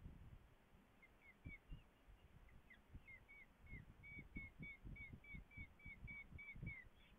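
Raptor nestling begging while being fed: a run of short, high, downslurred chirps, irregular at first, then steadier at about two to three a second from about four seconds in, stopping just before the end. Low dull thumps and rumbles run underneath.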